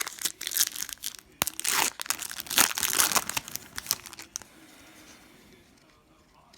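Foil trading-card pack wrapper being torn open and crinkled, a run of crackly rustling that stops about four and a half seconds in.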